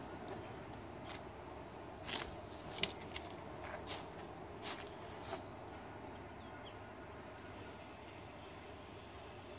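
Footsteps on a sandy path strewn with dry leaves: about half a dozen irregular crunches between about two and five and a half seconds in. A faint, steady high-pitched tone continues underneath.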